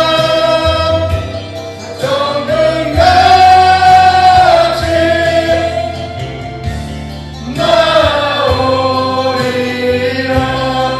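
Korean worship song sung by a small praise team in long held phrases, women's and a man's voices together, over strummed acoustic guitar.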